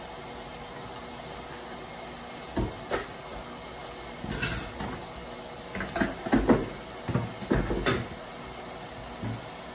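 Kitchenware clinking and knocking irregularly: two knocks, a bright clink, then a busier cluster of knocks and clatter in the second half. A steady low hiss runs underneath.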